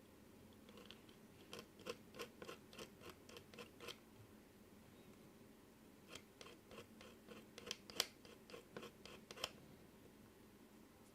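Two runs of quick, light clicks, about three a second, from small hand work at close range, with the loudest click near the middle of the second run.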